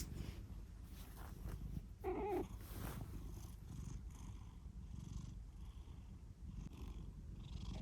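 Domestic cat snoring: a steady low buzzing rumble with each breath. About two seconds in, a short wavering higher tone rides over it.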